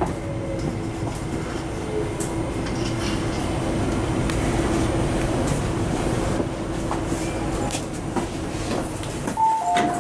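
Inside the cabin of an MTR IKK-train running into its terminus: a steady rumble of wheels on track with a motor hum. Near the end a sharp click comes, then a two-note electronic chime begins.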